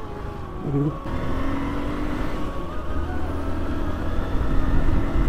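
Motorcycle engine running steadily while riding, with low wind and road rumble, and a short voice sound under a second in.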